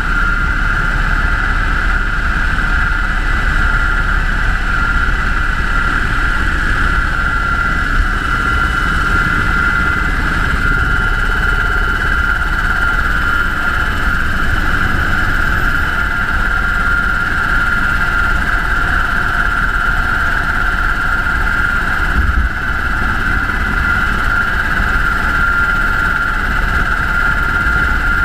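UH-60 Black Hawk helicopter in flight: a steady, loud, deep rumble with a constant high whine over it.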